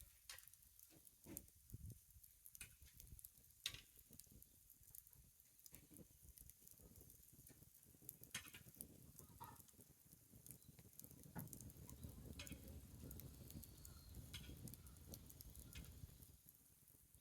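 Faint crackling of a wood bonfire: scattered sharp pops and ticks, with a low rumble swelling up in the second half.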